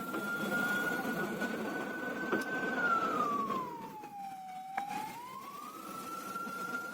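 Emergency vehicle siren wailing. Its single tone holds high, slides slowly down to a low point about four and a half seconds in, then climbs back up. There are a couple of light clicks over a steady background noise.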